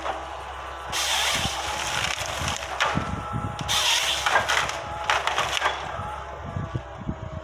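Waratah H414 harvester head working a pine at its base, wood cracking and splintering with two loud bursts of noise, about a second in and about four seconds in, over the machine's steady engine.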